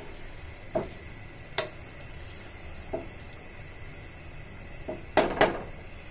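Wooden spatula stirring curry in a metal pot, knocking lightly against the pot's side now and then, followed near the end by two louder sharp taps on the pot.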